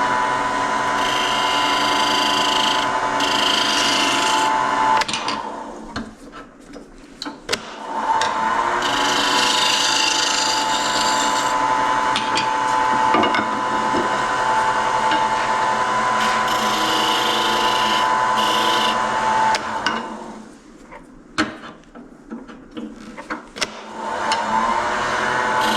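A Laguna wood lathe runs with a tool working against the spinning wooden knob: a steady motor hum with a scraping rasp over it. The lathe sound drops away twice, about five seconds in and again about twenty seconds in, and comes back each time a few seconds later as the lathe spins back up.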